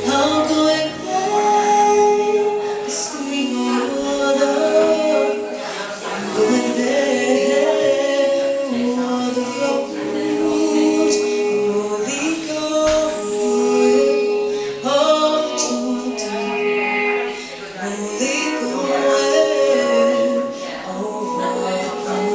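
Live band music: sung vocals with harmonies over sustained chords.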